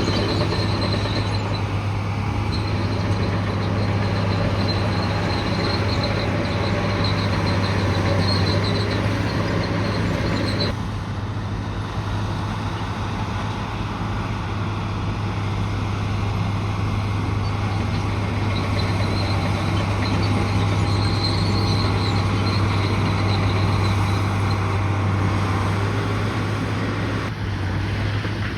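Bulldozer's diesel engine running steadily under load, with a high metallic squeal from the crawler tracks that comes and goes.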